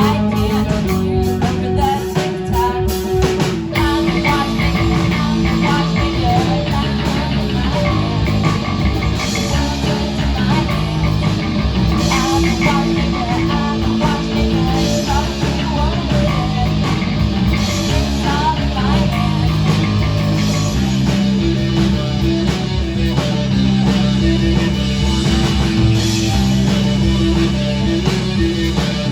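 A rock band playing live, with electric guitar over a heavy low end.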